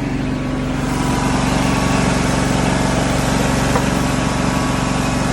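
Truck-mounted water extraction unit running: a steady engine drone under the loud rushing hiss of its vacuum, which grows louder about a second in.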